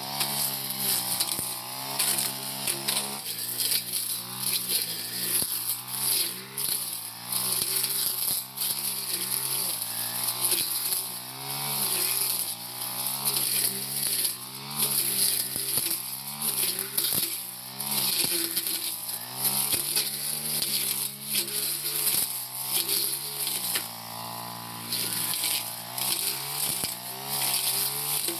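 Four-stroke brush cutter engine running under load while cutting tall grass and brush, its speed rising and falling again and again with a hiss of the spinning cutter over it.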